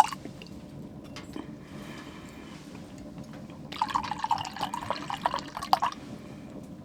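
Liquid poured into a cup or glass for about two seconds, past the middle, over a faint steady low background noise.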